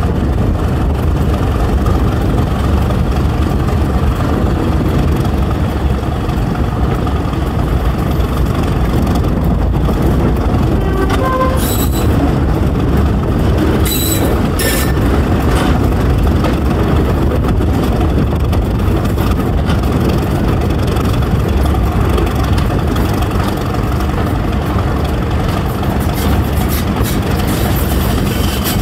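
Class 31 diesel locomotive's English Electric 12-cylinder engine working steadily as it pulls away, with wheel and rail noise as it gathers speed. A few brief high squeaks come about twelve and fifteen seconds in.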